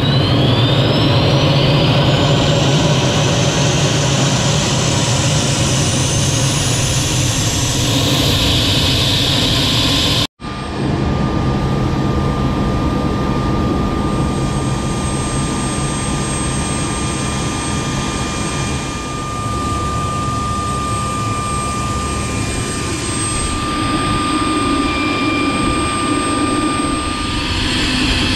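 UH-60L Black Hawk gas turbine spooling up, a high whine rising steadily in pitch for about eight seconds. After a brief dropout it runs on as a steady high turbine whine with a lower hum beneath.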